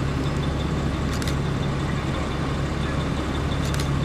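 Police SUVs and cars driving slowly past in a procession: a steady low engine hum with road noise.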